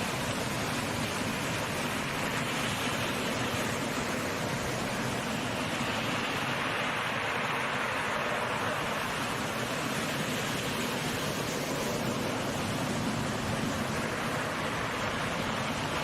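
Steady rushing noise of waves and wind at the water's edge, even throughout with no distinct events.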